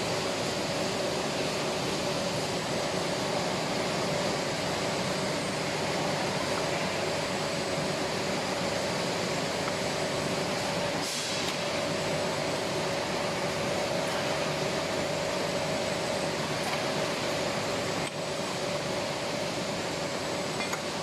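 Steady machinery hum with a constant droning tone, and a light metallic clink about halfway through and another near the end.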